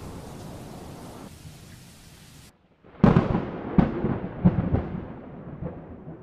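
A steady hiss of wind and rain that cuts out about two and a half seconds in, then a sudden loud thunderclap about three seconds in, breaking into several cracks and rumbles that fade away.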